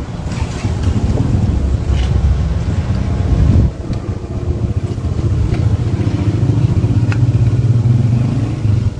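A loud, steady low rumble with a few light clicks, dipping briefly a little before four seconds in.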